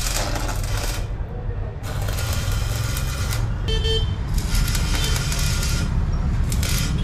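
Stick (arc) welding a steel wheelie bar onto a small dirt bike: the arc crackles and sizzles in four bursts of up to about a second and a half, with short breaks between strikes. A steady low hum runs underneath.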